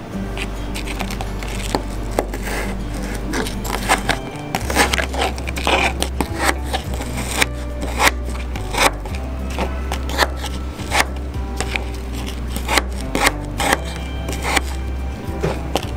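Chef's knife chopping mango on a cutting board: irregular sharp knocks of the blade hitting the board, several a second at times, over background music with a steady deep bass.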